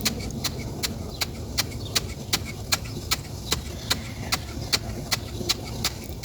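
A machine running with a steady low hum, and a sharp click repeating evenly about two and a half times a second.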